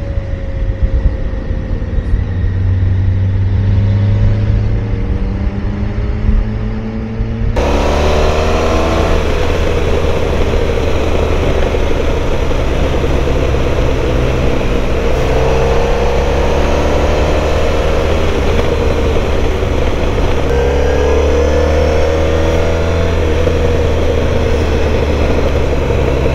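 Motorcycle engine pulling hard along a road, its pitch rising several times and dropping back as it shifts up through the gears, over steady wind and road noise. The sound turns abruptly louder and brighter about a third of the way in.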